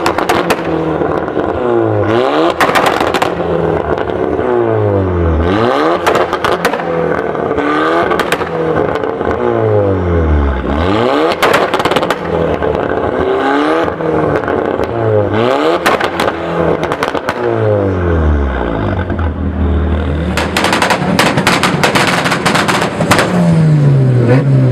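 Modified Volkswagen Golf engine revving again and again, its pitch sweeping up and falling back, with bursts of sharp exhaust pops and bangs; the densest burst of bangs comes near the end.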